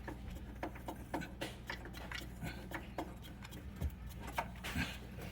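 Irregular light clicks and taps of hand work on a built-in dishwasher's metal parts as it is worked free, over a steady low hum.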